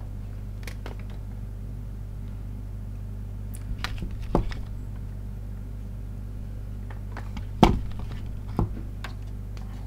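Steady low electrical mains hum, with a few light clicks and knocks scattered through; the loudest knock comes about three-quarters of the way in.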